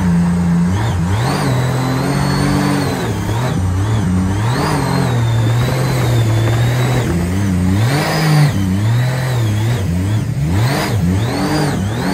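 Jet boat engine running hard at speed, its pitch rising and falling again and again with the throttle, with a high whine following it, over the rush of spray and wind.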